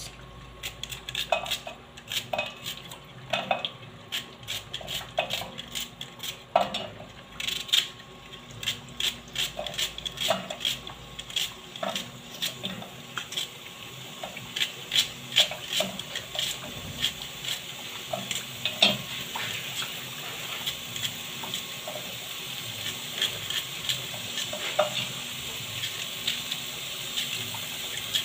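Sharp clicks and knocks of kitchen utensils as onions are prepared for a beef dish, irregular at about one or two a second and busier around the middle. A steady hiss builds up beneath them from about halfway.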